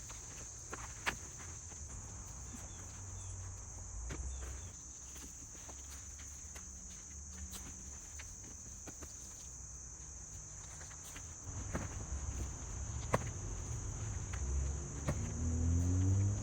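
Insects trilling steadily in the background, with a few sharp clicks and low rustling. Near the end a rooster starts to crow.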